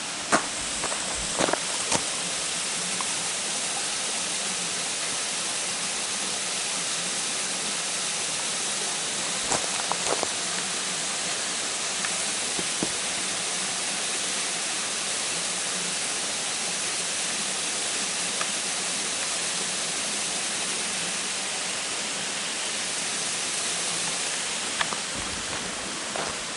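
Steady rushing of a small waterfall in a rain-swollen mountain stream, with a few footsteps in the first couple of seconds and again about ten seconds in.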